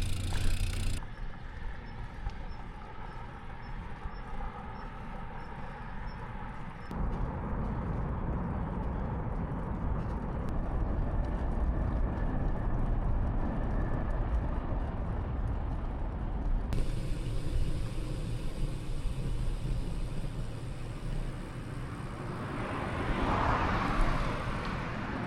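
Road noise heard while cycling: wind rumbling on the microphone and traffic going by, with a vehicle passing louder near the end. The noise changes abruptly a few times.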